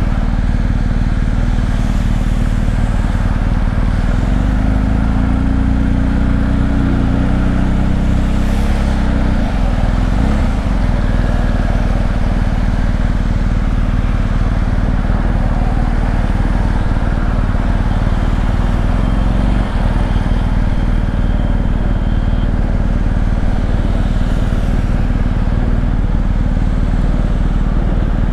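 Ridden BMW R 1250 GS Adventure at road speed: the boxer-twin engine runs under a steady rush of wind on the rider-mounted microphone. The engine note climbs slightly over the first several seconds and changes pitch about ten seconds in.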